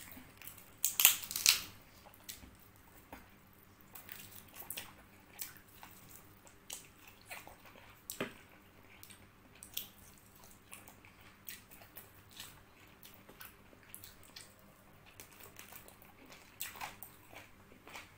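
Close-up eating sounds: roasted chicken meat torn apart by hand, loudest in a burst about a second in. Then comes scattered wet chewing with lip-smacking clicks.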